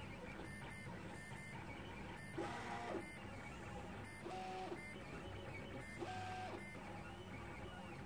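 Prusa i3 MK2S 3D printer's stepper motors whining as they move the pen head over a steady low hum. Three short pitched whines step up, hold and drop back, a little under two seconds apart.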